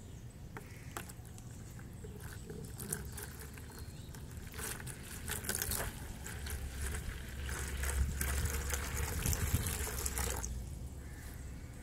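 Water poured into a plastic tub, splashing and bubbling as it fills. The pour builds about four and a half seconds in and stops shortly before the end.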